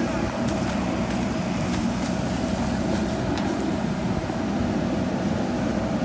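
JCB backhoe loader's diesel engine running steadily under load as the backhoe arm swings a bucket of earth, with a few faint clicks.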